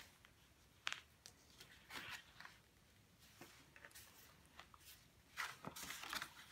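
Stiff cardstock panels being folded and pressed flat by hand: faint, scattered paper rustles and creases, loudest a little before the end.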